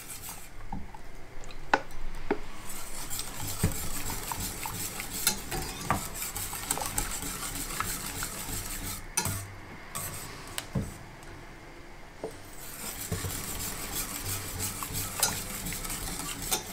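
Wire whisk stirring thick cherry barbecue sauce in a stainless steel saucepan, scraping round the pan with scattered light clinks of the wires against the metal as the sauce thickens.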